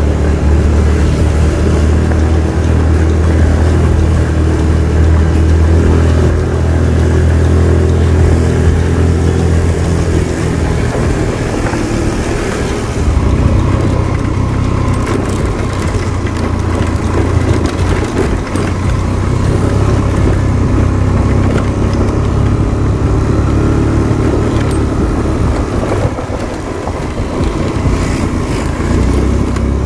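A vehicle's engine runs steadily while travelling along a road, with a low drone and road noise. The engine note shifts about halfway through.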